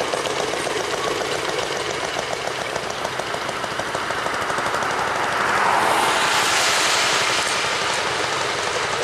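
Rail speeders (small motor track cars) running along the track, their small engines popping with a fast, even beat. About halfway through, a louder rushing sound swells and fades as a speeder passes close.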